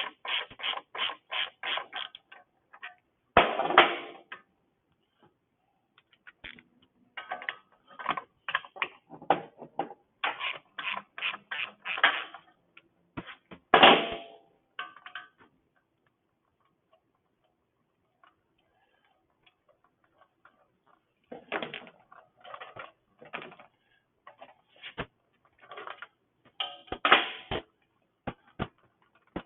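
Clicks, taps and knocks from hand tools and metal and plastic parts being worked on a Honda GCV160 small engine, coming in runs of quick, evenly spaced clicks with short pauses between them.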